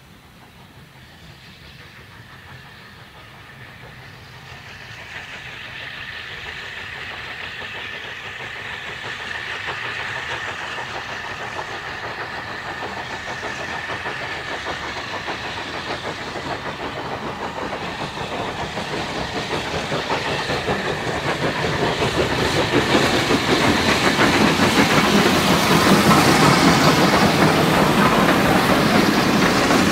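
Double-headed steam train, LSWR T3 4-4-0 No. 563 leading SECR O1 0-6-0 No. 65, approaching and passing close. It grows steadily from faint to loud, with steam hiss and the rattle of wheels on rail at its loudest near the end.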